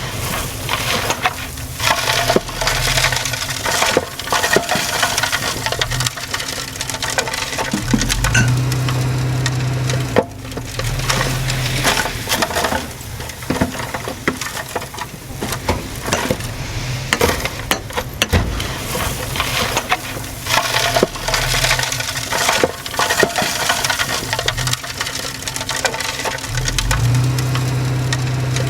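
Komatsu D20P bulldozer working: its diesel engine runs under a dense crackling and crunching of tracks and soil. The engine swells twice, about a third of the way in and again near the end.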